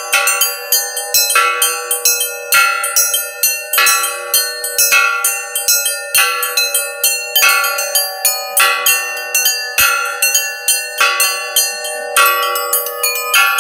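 Russian-style church ringing on hanging metal gas cylinders used in place of bells: several cylinders of different pitch struck in quick succession, each note ringing on. A lower-pitched cylinder sounds about once every second and a bit under the quicker strikes on the higher ones.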